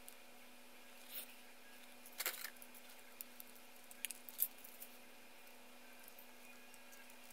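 Faint, scattered clicks and rattles of plastic model-kit parts and runners being handled, with a short cluster about two seconds in and a few sharper clicks about four seconds in.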